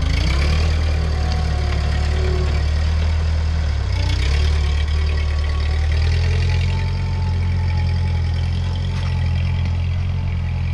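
Ford 9N tractor's four-cylinder flathead engine running steadily, its note shifting around four seconds in and again near six seconds as the tractor pulls away.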